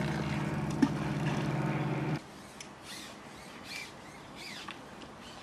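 An engine running steadily with a low hum, cutting off suddenly about two seconds in. Quieter open-air background with faint light ticks follows.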